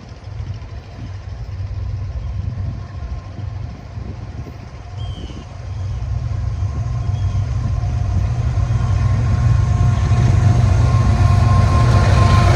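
Diesel locomotives of an approaching train: a low engine rumble that grows steadily louder from about halfway through, with steady engine tones coming up near the end.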